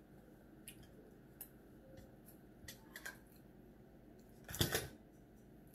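Quiet tableware sounds of a meal: scattered light clicks and taps of a fork against a plate, with one louder thump about four and a half seconds in.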